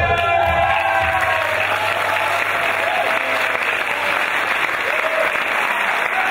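Large audience applauding steadily, with a few cheers rising above the clapping.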